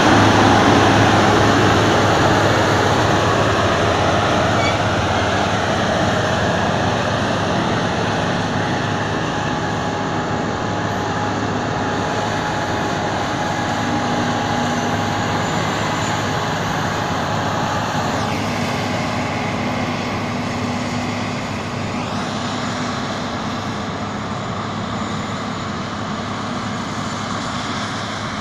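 New Holland FX58 self-propelled forage harvester running under load while chopping maize, with the tractor hauling the trailer alongside. It is a steady low drone with a faint high whine, growing gradually fainter as the machines move away.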